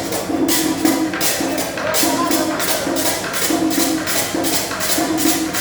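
Music with a quick, regular percussion beat and a repeating low melodic figure.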